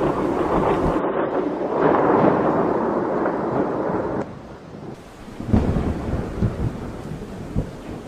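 Thunderstorm: a long rumble of thunder over rain that drops away about halfway, then a fresh low peal of thunder that is the loudest moment, with rumbling trailing after it.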